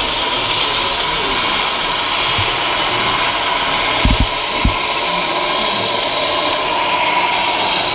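Steady whirring, blower-like noise, with two or three short low thuds about halfway through.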